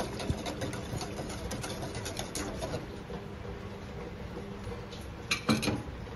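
Wire whisk stirring in a stainless steel pot, its wires clinking lightly and rapidly against the metal for the first few seconds, then more quietly. Two louder metallic clinks come near the end.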